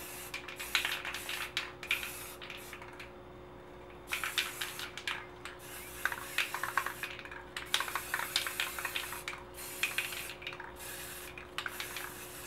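Aerosol spray paint can spraying black base coat in repeated bursts with short pauses, hissing and sputtering with crackly spits as the can runs nearly empty.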